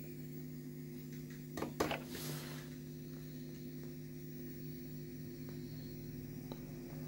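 Steady low electrical hum from a powered-up PA sound system through its speakers, with two sharp clicks about a second and a half in and a short hiss just after.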